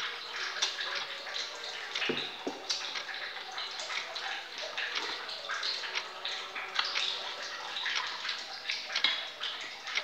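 A man slurping and chewing fried noodles, with wet sucking and smacking in irregular bursts and short clicks.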